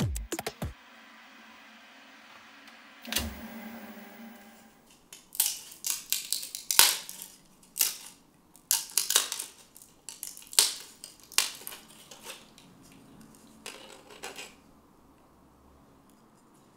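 Hard objects clicking, clattering and knocking in an irregular run, over a faint steady background noise, with a brief low rumble about three seconds in.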